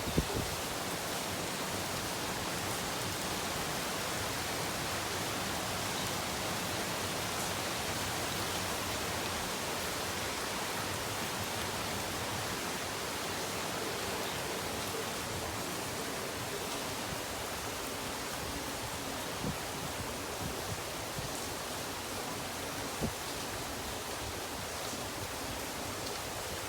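Steady rain falling, an even hiss of drops with a few faint separate ticks.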